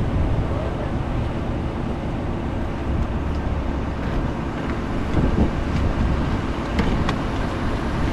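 Steady low rumble of highway traffic and truck engines, with wind buffeting the microphone. A few sharp clicks come in the second half as a pickup's door is handled and opened.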